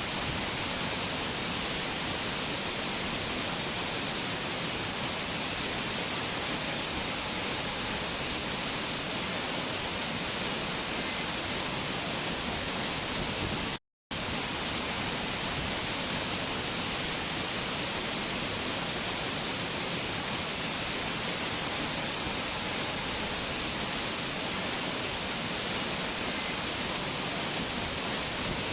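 Steady, even rush of a waterfall, cut once about halfway through by a split-second drop to silence.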